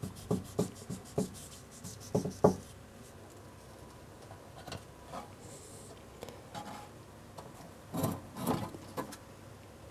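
Razor blade scraping against a rock while cutting a mat of green star polyps away from it: a run of quick rasping strokes, then a quieter spell, with a few louder scrapes near the end.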